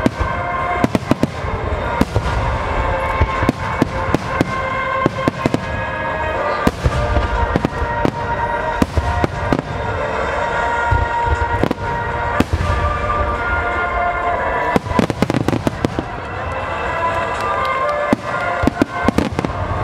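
Aerial fireworks shells bursting in quick succession, a dense run of sharp bangs and booms, with sustained music tones playing underneath.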